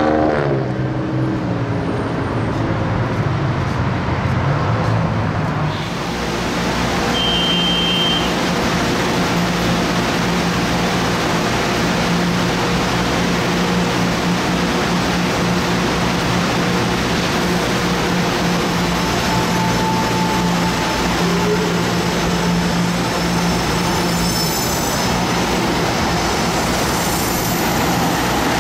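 Steady vehicle rumble and rolling noise with a low, steady hum. A whine falling in pitch dies away within the first second.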